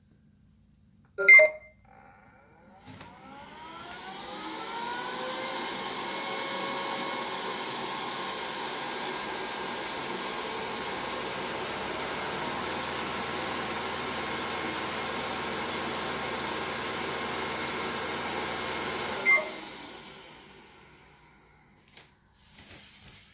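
Neato D85 robot vacuum: a short beep, then its suction motor spins up with a rising whine and runs steadily for about fifteen seconds before another beep and the motor winding down. The cleaning run aborts instead of starting, the robot's error 3000 fault.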